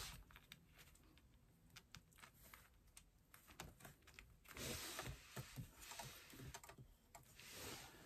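Near silence with faint scattered clicks and a soft rustle from about halfway in: hands handling a faux leather bag panel and its strap-connector hardware.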